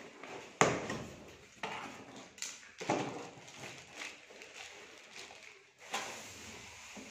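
Cardboard box and its cardboard packing inserts being pulled open and handled: scraping and rustling with several sharp knocks, the loudest about half a second in.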